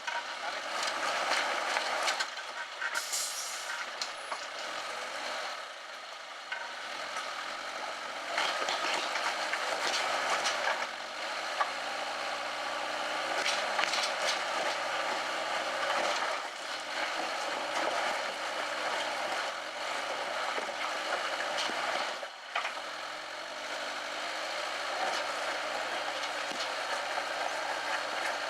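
Suzuki Jimny Sierra's four-cylinder engine working at low revs as it crawls over rocks, the revs rising and falling as it takes load. A steady hiss lies over it, with scattered sharp knocks throughout.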